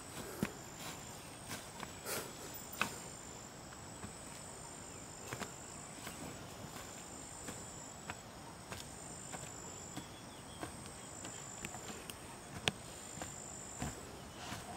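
Faint insect chirping in repeated high, steady trills, with scattered light clicks and knocks; the sharpest click comes near the end.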